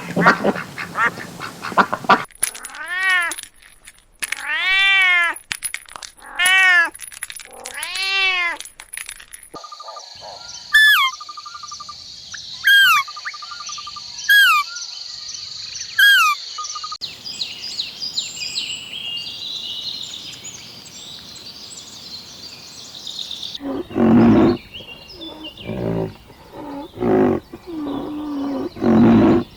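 A run of different animal calls one after another: four drawn-out rising-and-falling meows, then a bird's short chirps repeated every second or two, then a series of loud low calls near the end.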